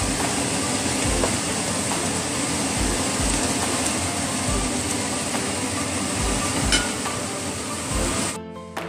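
Napa cabbage sizzling as it is stir-fried in a hot pan and turned with a wooden spatula, over background music with a steady low beat. The frying noise cuts off suddenly near the end, leaving only the music.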